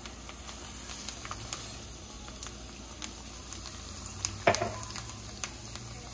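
Hot cooking oil sizzling for the rice, a steady hiss with scattered small crackles. One louder sharp click or pop comes about four and a half seconds in.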